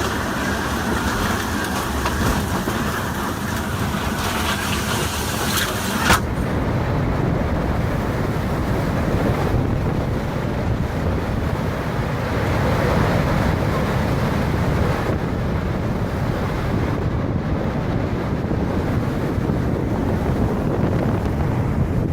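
Strong storm wind rushing and buffeting the microphone. About six seconds in the sound changes abruptly with a short click, and afterwards it is a deeper, duller rumble.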